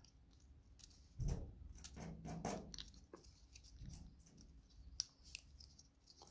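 Small laser-cut plywood model-kit pieces being handled and pressed together. Faint clicks, taps and light scraping of thin wood, with a soft thump about a second in and a sharp click about five seconds in.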